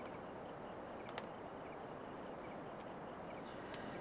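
Crickets chirping in an even rhythm, about two short high chirps a second, over a faint background hiss.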